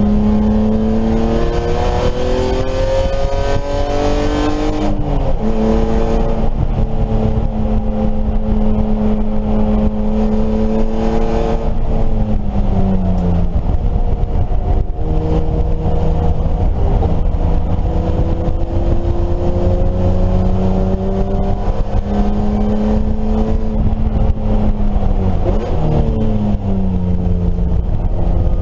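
BMW E30 race car engine running hard under acceleration, its pitch climbing steadily with a sharp drop at a gear change about five seconds in. It eases off around twelve seconds, climbs again, and dips once more near the end.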